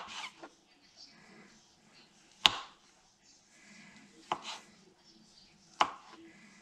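Kitchen knife chopping wood hedgehog mushrooms on a plastic cutting board: four sharp knocks of the blade hitting the board, spaced about one and a half to two and a half seconds apart.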